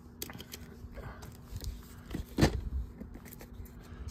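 Handling noises from a VHS tape and its packaging: scattered small clicks and rustles, with one louder knock about two and a half seconds in.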